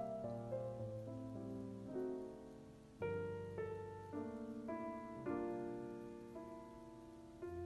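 Soft background piano music, with new chords struck every second or two and left to ring.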